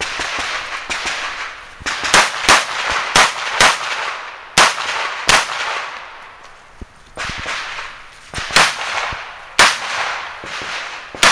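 Rifle shots fired in a run of about a dozen at uneven spacing, often two or three in quick succession with short pauses between groups, each crack followed by a brief echo.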